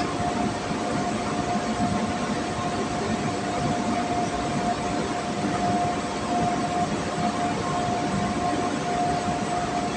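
Steady mechanical drone with a constant whine running through it, even in level throughout.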